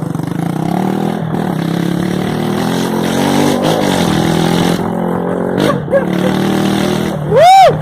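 Honda CG Fan motorcycle's single-cylinder four-stroke engine running with its exhaust pipe removed, its pitch rising and falling as it is revved. Near the end a loud, brief high tone rises and falls.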